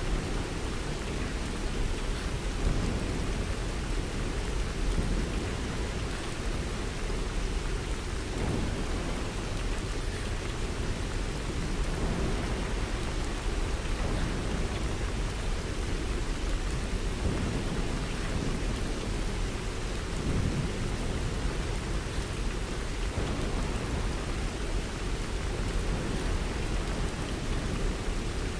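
Steady rain falling without a break, with a strong low rumble underneath.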